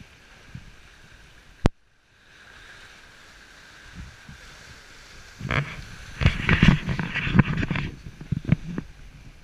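Steady rush of wind and water along a sailboat under way. A sharp click comes just before 2 s with a brief dropout after it. From about 5.5 s a loud run of irregular knocks and splashes lasts about three seconds.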